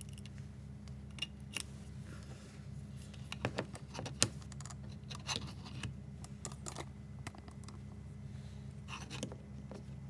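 Small plastic clicks and scrapes of a USB cable being plugged into a wall USB charger and into a Ring video doorbell battery, the sharpest click about four seconds in, over a steady low hum.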